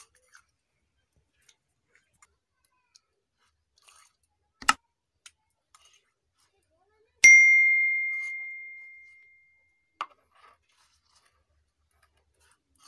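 A single clear, bright ding about seven seconds in, ringing and fading away over a couple of seconds. Around it are a few light knocks and scrapes of hands and a steel bowl against a stone grinding slab.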